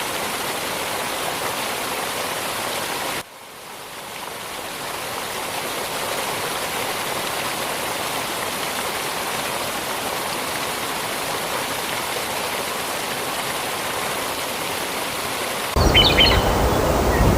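Small waterfall of spring water cascading over a mossy rock wall: a steady, even rush of water. The sound drops suddenly about three seconds in and swells back over a few seconds, then turns abruptly louder near the end.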